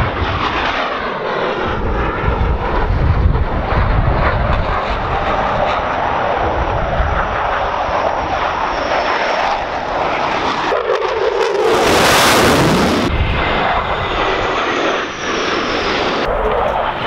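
Jet noise from a formation of Thunderbirds F-16 Fighting Falcons flying past, a steady loud rushing sound with a sweeping, phasing tone in the first few seconds. About twelve seconds in there is a brighter, hissier surge.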